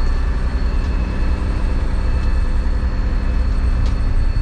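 A boat's engine running steadily under way, a constant low drone heard from inside the cabin.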